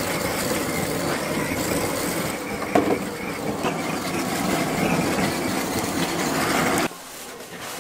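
Gas blowtorch flame blowing steadily over cheese-topped lobster halves, a continuous rush that stops abruptly near the end.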